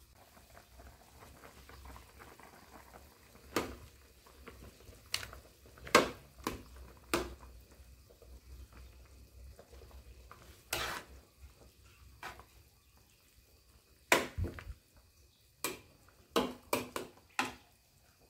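A ladle stirring chicken tom yum broth in a large aluminium pot, clinking against the pot at irregular moments, most often near the end, over the faint bubbling of the simmering soup.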